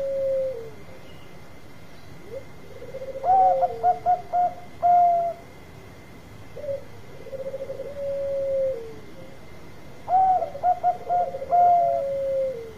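Zebra dove (perkutut) singing its cooing song: a rolling, trilled coo, then a quick run of about five short, clear coos ending in a longer held note. The phrase comes twice.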